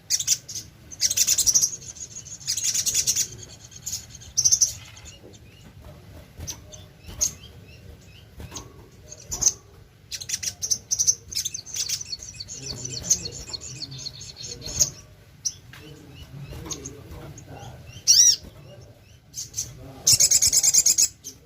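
Sogon bird calling: repeated bursts of high, rapid trilled chirps, some about a second long, others brief single notes.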